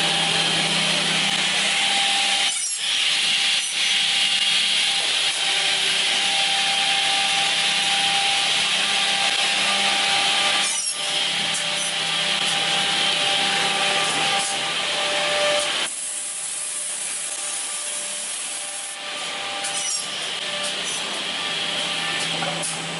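Automatic bevel-angle edge banding machine running: steady noise of its motors and cutting and buffing heads over a constant low hum, as a panel goes through its gluing, corner-trimming and buffing stations. The noise breaks off briefly a few times and is a little quieter in the last third.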